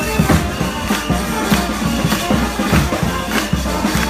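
Street procession band playing live music with a steady drum beat, about two strokes a second.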